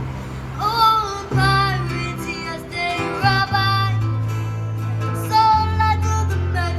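A busker singing in a high voice over strummed acoustic guitar. The voice comes in about half a second in and carries the melody over steady low accompaniment notes.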